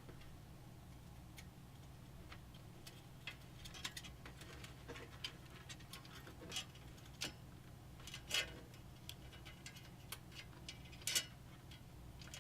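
Scattered light clicks and taps of cables and plastic case parts being handled while front-panel and USB 3.0 header wiring is routed inside a PC case, the loudest about eight and eleven seconds in. A steady low hum lies underneath.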